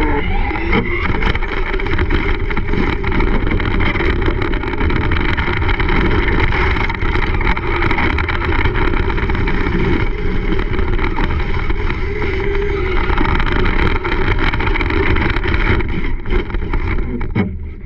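Traxxas Slash RC short-course truck driving hard, heard from a camera mounted on the truck: its motor and drivetrain whine with tyre and chassis rattle over pavement, gravel and grass, and wind on the microphone.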